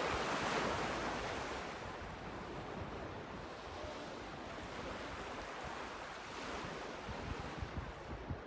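Winter sea waves washing onto the shore, a steady rush of surf that is loudest in the first second, with some wind on the microphone.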